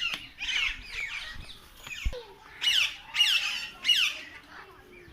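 Birds squawking: a string of short, harsh calls that fall in pitch, several a second, loudest about three seconds in.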